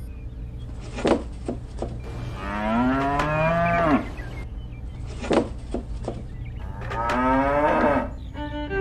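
Cows mooing: two long moos, one about two and a half seconds in and one near the end. A few sharp knocks come between them.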